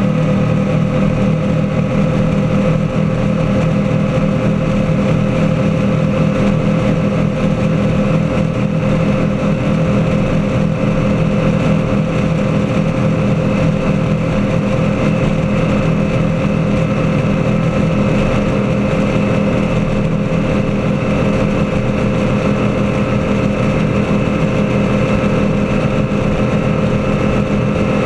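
Engine of a 35-foot Lightning powerboat running at high speed, a steady drone that holds the same pitch throughout, over the constant rush of water and wind.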